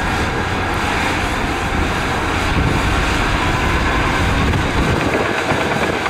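Crawler bulldozer's diesel engine running steadily under load as it pushes dirt with its blade.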